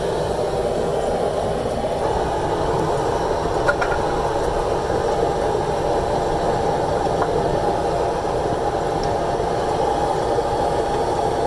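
Steady mechanical drone, like a running fan or blower, with a couple of faint clicks about four seconds in.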